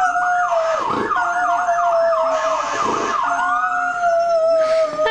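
Dog howling along with a siren: one long drawn-out howl while the siren sweeps rapidly up and down, about three times a second, then settles back into a slower wail after about three seconds.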